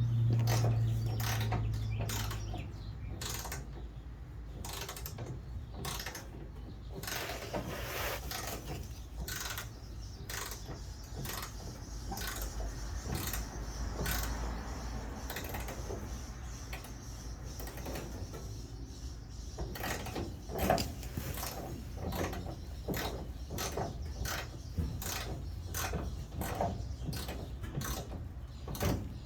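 Hand ratchet wrench clicking in irregular runs while loosening bumper bolts, with scattered metal clicks and knocks. A low hum fades out in the first couple of seconds.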